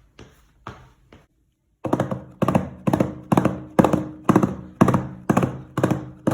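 Footsteps on a hard, flat surface: a few faint taps, then a steady walk of about two steps a second, each step a close double knock.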